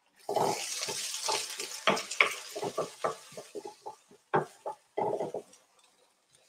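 Diced zucchini and onion sizzling in a pan while a utensil stirs them, knocking and scraping irregularly against the pan. The sizzle fades after a couple of seconds, and the stirring stops about five and a half seconds in.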